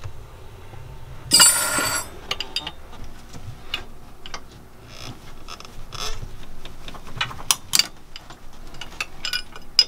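Hand tools clicking and clinking on the metal fuel return line bolts of a Northern Lights diesel generator as the bolts are unscrewed and loosened. A louder metallic rattle lasting under a second comes about a second and a half in, followed by scattered light clicks.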